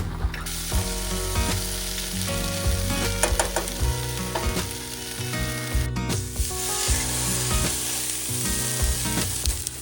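Food sizzling and frying in a hot pan, with a few strokes of a utensil stirring or turning it.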